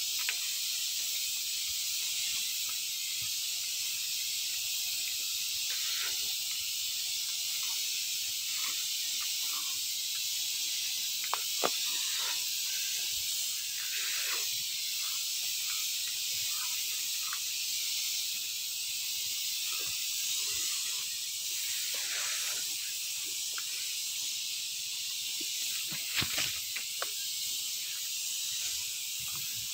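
Steady high-pitched hiss of liquid forced under pressure through a hose-fed double-nozzle spray gun, spraying fine mist onto grapevine foliage. A few brief ticks sound about twelve seconds in and again near the end.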